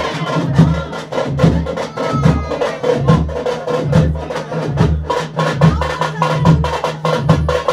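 Festival drumming in a fast, steady rhythm. Deep drum beats come about twice a second, with quick sharp strokes packed between them, over a held, sustained tone.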